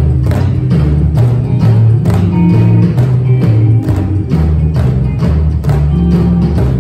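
Upbeat recorded rock song with a prominent bass line and a steady beat, about two beats a second, with drumsticks tapping along in time.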